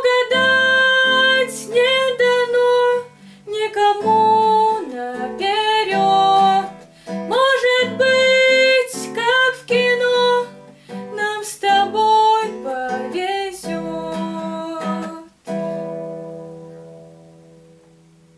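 A girl singing over a strummed nylon-string cutaway classical guitar, closing the song; a final chord is struck about fifteen seconds in and rings out, fading away.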